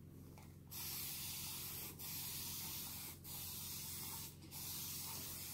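Water spray bottle misting a section of a human-hair wig: four long hisses of about a second each with short breaks between, the first starting under a second in and the last running on past the end. The hair is being wetted to bring out its waves.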